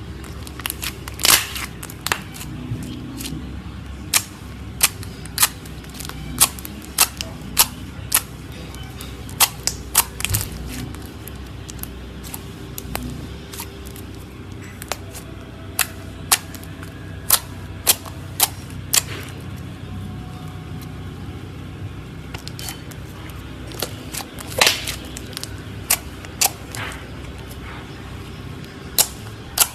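Hands pressing and squeezing glossy pearly-white slime, trapped air popping out in sharp clicks at an irregular pace, about one or two a second.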